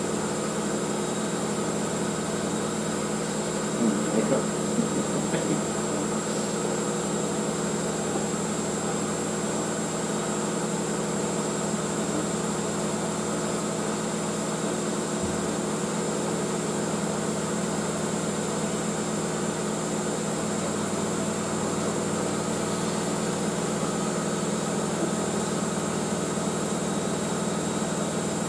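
Front-loading washing machine running, its motor humming at a steady pitch. A few brief louder sounds come about four to five seconds in.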